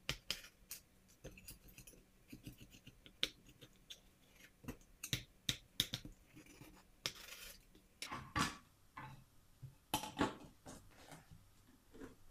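A knife scraping and clicking against the inside wall of a round metal cake pan as it is run around the edge of a baked cake to loosen it, with a few louder knocks of the metal pan being handled in the second half.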